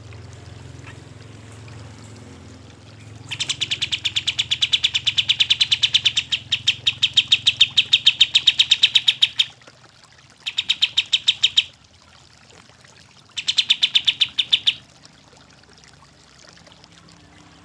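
Kapas tembak songbird calling in a fast, even rattle of notes, about seven a second. It comes in three bouts: a long one of about six seconds, then two short ones.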